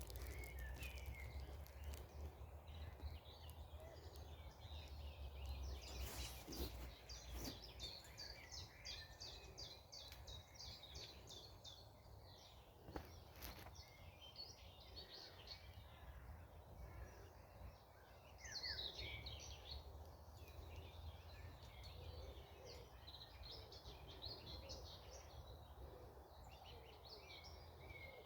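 Wild birds singing and calling, with quick trills running on and off, over a low wind rumble on the microphone. A few sharp knocks come about six, seven and thirteen seconds in.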